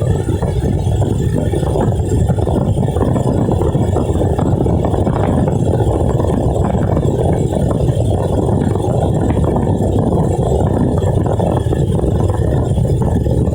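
Heavy rain: a steady, dense rushing noise, strongest in the low range.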